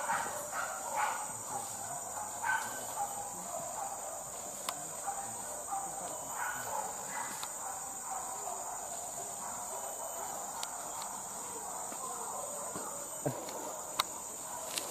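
Steady high-pitched drone of forest insects, with a few faint dog yelps in the first few seconds.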